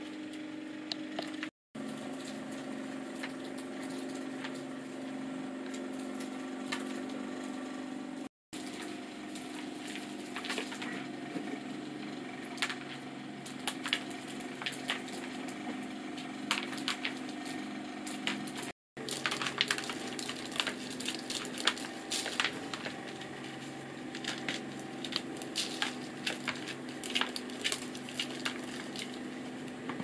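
Wood being worked with hand tools: many sharp knocks, cracks and splintering sounds, denser in the latter part, over a steady low hum.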